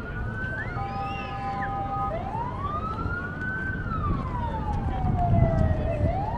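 Emergency vehicle siren wailing in slow sweeps, its pitch rising and falling over a few seconds at a time, with a few steady tones during the first two seconds, over a low background rumble.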